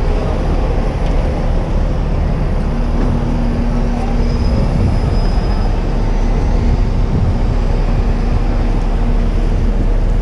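Steady low rumble of a moving vehicle, with a faint steady hum setting in about three seconds in.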